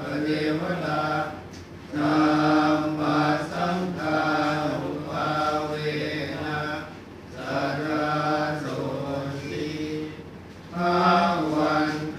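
Buddhist monks chanting in Pali, long held notes on a nearly level pitch, broken by short pauses for breath about two seconds in, about seven seconds in and near the end.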